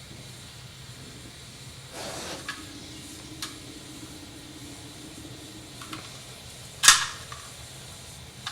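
A hammer strikes a small steel rivet held in a vise, peening it: one sharp metallic blow about seven seconds in. A few light metal clicks come before it, and a short noisy burst about two seconds in, over a steady low hum.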